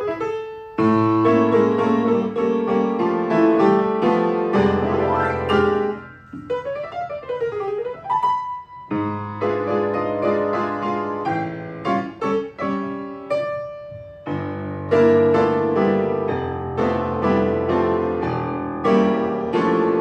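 Jazz piano trio music: an upright piano plays chords and melody, with plucked double bass notes underneath. The playing dips briefly about six seconds in and again near fourteen seconds.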